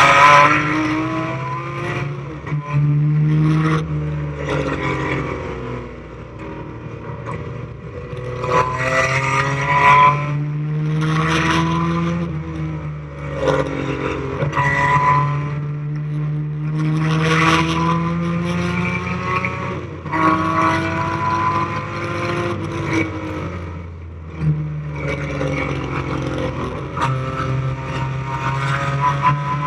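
1973 BMW CSL's straight-six racing engine at full race pace, its pitch climbing as it pulls through the gears and dropping back as it lifts and brakes, over and over.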